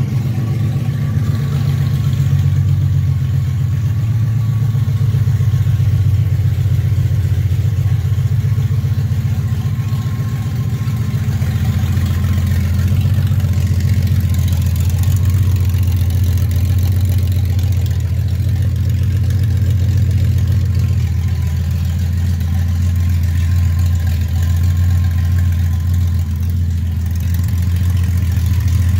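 Honda Gold Wing engine, mounted bare in a trike frame, idling steadily on its first start after disassembly. Its note settles a little lower about eleven seconds in.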